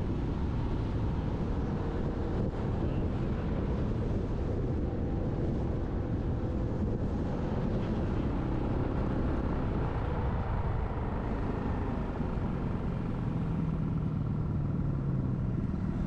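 Motorcycle running at road speed: a steady engine drone under rushing wind and road noise, with the engine tone standing out more clearly near the end.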